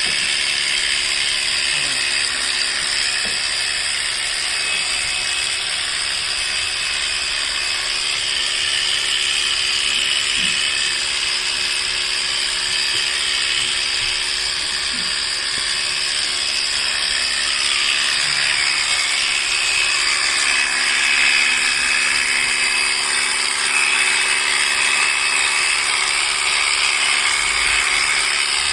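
Electric sheep-shearing clippers running steadily with a high-pitched motor whir while cutting a sheep's wool.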